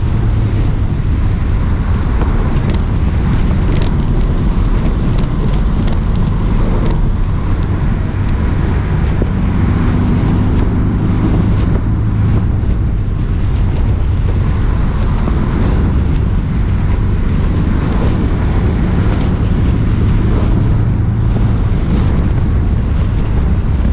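Porsche 718 S's turbocharged flat-four engine running steadily as the car is driven, under loud wind and road noise.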